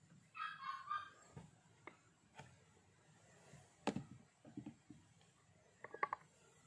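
Faint handling of a jar of glossy slime as it is tipped and the slime oozes out: a few sharp clicks, a sharper one about four seconds in, and a quick run of small sticky pops near the end. A faint animal call sounds briefly near the start.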